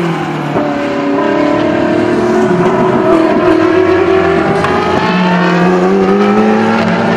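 Ferrari 458 GT race car's V8 engine at racing speed, driving past and away. The engine note holds fairly steady, drops about five seconds in, then rises again as it accelerates out of the corner.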